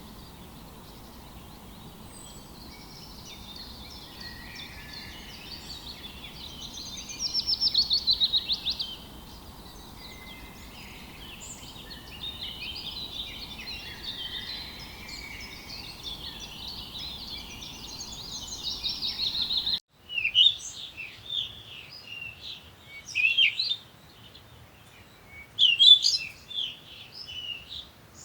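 Birds singing: a busy chorus of chirps and song phrases over steady background noise, with a fast, loud trill about a quarter of the way in. About two-thirds through it cuts abruptly to a different recording of sharp, separate chirps in short bursts.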